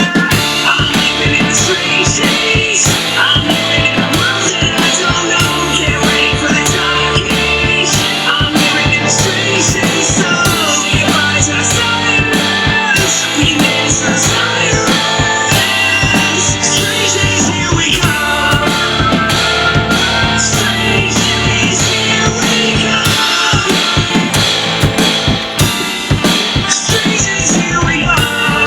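Rock music: an instrumental passage with a driving drum kit, bass and guitar.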